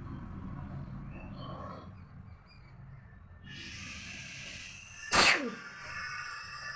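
A person sneezes once, a single sharp, loud burst about five seconds in, after a second or two of breathy hissing.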